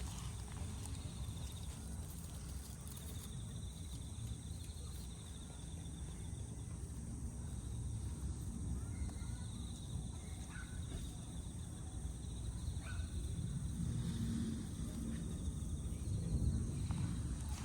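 Outdoor ambience: a steady low rumble that grows louder a few seconds before the end, with a faint high trilling that comes and goes and a few faint short chirps.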